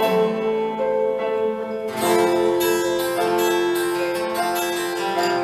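Instrumental bars of a pop ballad: acoustic guitar strumming over held backing chords, with a new chord struck about two seconds in.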